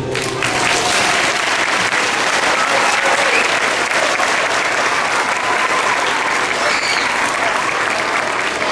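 Audience applauding, starting suddenly and staying steady and dense.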